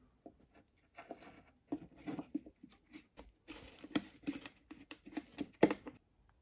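Cling film crinkling, with light knocks and scrapes of balsa wood, as a model boat's balsa cabin roof is pressed and fitted into place; irregular crackly handling noises that stop about six seconds in.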